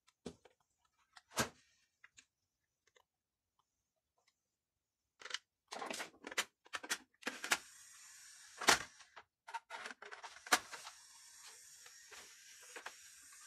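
Plastic clicks and knocks from handling a Samsung 3-disc changer's front panel and disc tray. From about seven seconds a steady whir with rattling clicks comes in as the tray mechanism moves.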